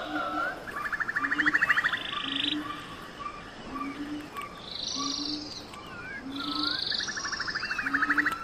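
Frogs and birds calling together. Short low croaks come about once a second, several rapid buzzy trills sound over them, and short bird chirps slide up and down between.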